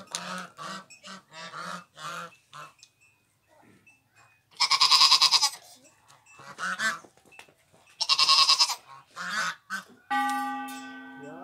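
A farm animal cries out loudly twice, each cry about a second long and rough, with short low voices between. About ten seconds in, a ringing tone starts and slowly fades.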